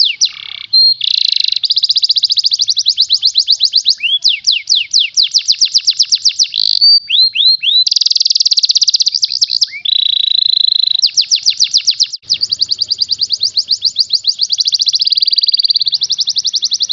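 Yellow domestic canary singing a fast, dense song: long rolls of rapidly repeated high sweeping notes, about ten a second, changing from one trill to the next, with a few brief breaks.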